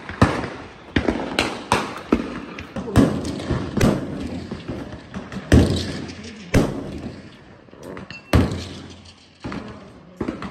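Gunfire on an outdoor shooting range: about ten sharp shots at irregular intervals, each with a trailing echo.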